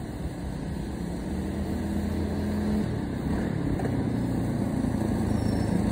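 Coleman mini bike's small single-cylinder engine running at speed as the bike comes closer, getting steadily louder.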